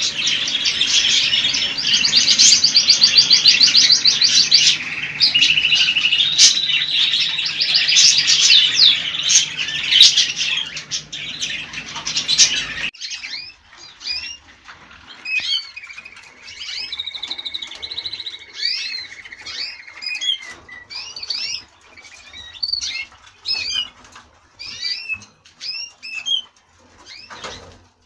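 Small cage birds chirping and twittering: a dense, loud chorus of high chirps and trills that cuts off abruptly about halfway through, followed by sparser single chirps and a short steady trill.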